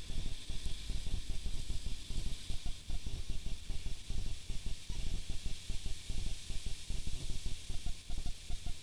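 Steady hiss over a dense, irregular low rumble: the self-noise of a night-vision trail camera's microphone, with no animal sound standing out.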